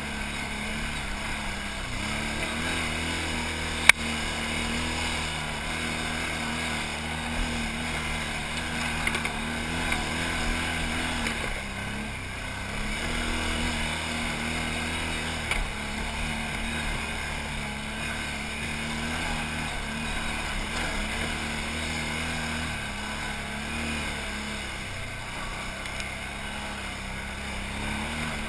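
Can-Am XMR 1000 ATV's V-twin engine running under load on a rocky hill climb, its note dipping and picking up again several times. A single sharp knock comes about four seconds in.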